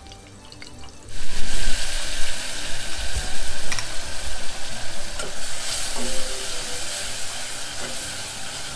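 Curry paste made with meat curry powder, tipped into hot oil in a steel pot, setting off a loud sizzle about a second in. The sizzle carries on as the paste is stirred, slowly dying down.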